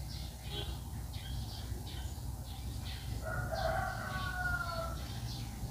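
A rooster crowing once, starting about three seconds in and lasting about two seconds, its pitch falling slightly, over a steady low hum.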